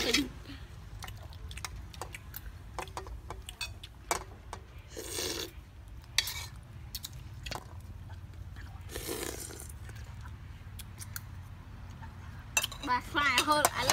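Metal spoons clinking and scraping against a metal wok and ceramic plates while eating, in scattered light ticks, with two short noisy bursts about five and nine seconds in. A voice comes in near the end.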